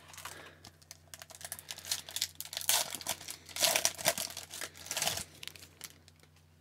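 Foil wrapper of a hockey card pack crinkling and tearing open, a run of crackly rustles lasting about three seconds.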